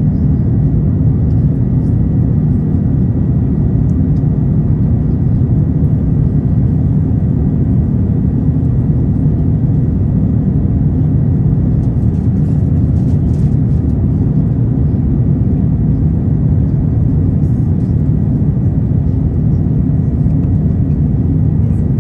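Steady low rumble of cabin noise aboard an Airbus A350-900 in flight, from its Rolls-Royce Trent XWB engines and the airflow past the fuselage, with a faint steady high whine above it.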